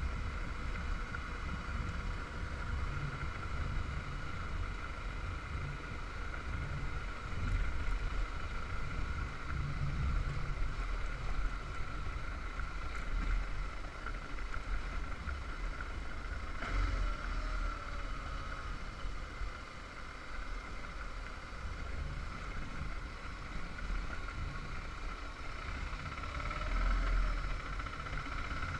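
Motorcycle running while being ridden: a steady low engine rumble under wind noise.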